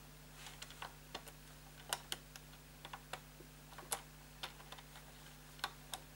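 Hand screwdriver driving a small screw in: faint, irregular light clicks and ticks, about fifteen of them scattered unevenly.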